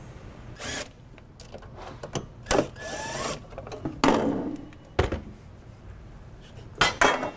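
Handling noise as the sheet-metal front cover is taken off an industrial AC drive: scattered scrapes, clicks and a few sharp metallic knocks.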